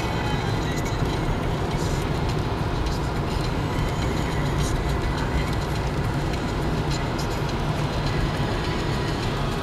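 Steady road noise heard inside a moving car: a continuous low rumble from engine and tyres with an even hiss over it.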